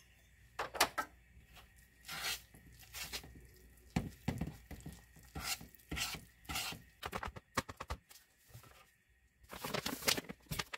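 Wooden spoon stirring a sticky, sloppy whole-wheat flour dough in a bowl: irregular scraping strokes with small knocks of the spoon. Near the end, a mesh sieve of flour is shaken over the bowl in a quick burst of rustling.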